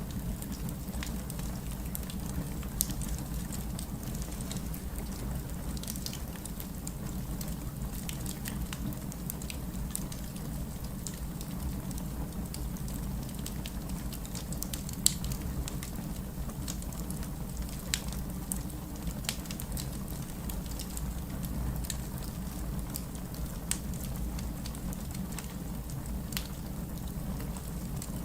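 Fireplace fire crackling: irregular sharp pops and snaps over a steady low rumble, with a louder pop about 3 s in and another about 15 s in.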